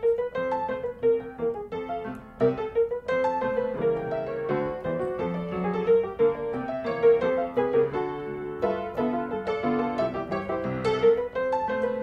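Background music: a piano melody, notes struck in a steady rhythm.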